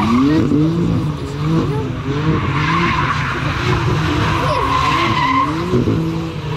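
BMW M4's twin-turbo inline-six revving hard while drifting, its revs rising and falling quickly again and again as the throttle is worked. Tyres squeal in swells as the car slides.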